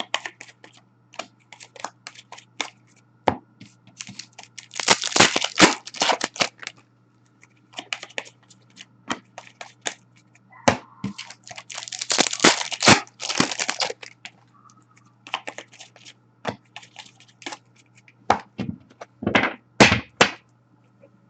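Foil trading-card packs being torn open and the cards handled. Wrappers crinkle and tear in two longer spells, about five and twelve seconds in, between many short clicks and taps.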